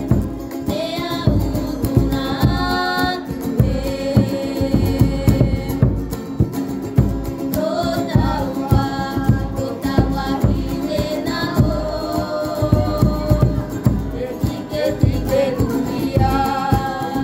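Background music: a song with group singing over a steady beat.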